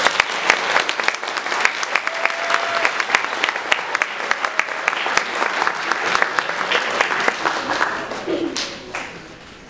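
Audience applauding; the clapping breaks out suddenly and dies away near the end.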